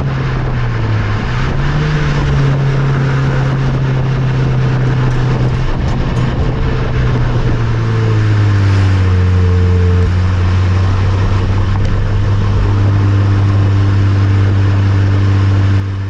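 Nissan Note Nismo S's 1.6-litre four-cylinder running through its stock stainless-steel muffler while driving. The exhaust note is steady with a brief dip and rise near the start, then drops lower and gets louder about eight seconds in.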